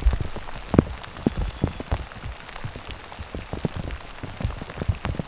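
Rain falling, with many large drops landing close as sharp, irregular taps over a steady hiss.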